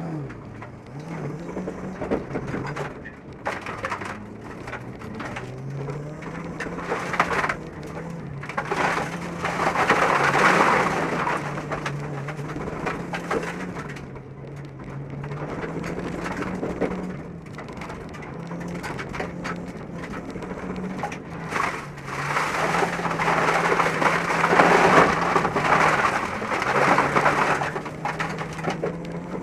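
Heard from inside the cabin, a Subaru STI rallycross car's engine runs hard, its pitch stepping up and down with throttle and gear changes. Over it is a loud hiss and rattle of gravel and dirt spraying against the car, heaviest around ten seconds in and again from about twenty-two to twenty-seven seconds.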